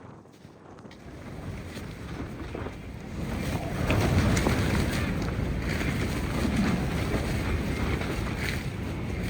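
Strong gusty wind buffeting the microphone with a low rumble, building from about a second in and staying loud from about four seconds.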